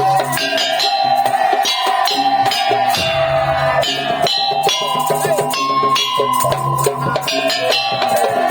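Madurese tong-tong (musik tong-tong) ensemble playing: drums and struck percussion beating a dense rhythm under held, pitched melody notes.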